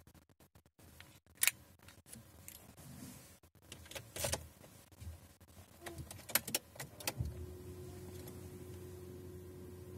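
Several sharp clicks and light rattles inside a car, then a steady low hum with a faint steady tone starts about seven seconds in.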